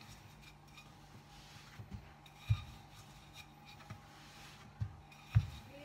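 Wooden rolling pin rolling out dough on a floured stone countertop: soft rubbing, with four dull knocks as the pin bumps the counter, the loudest about two and a half and five and a half seconds in.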